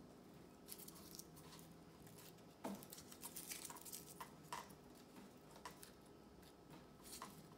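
Faint, scattered rustles and crinkles of tissue paper being scrunched by hand and pressed onto glued construction-paper branches, over quiet room tone.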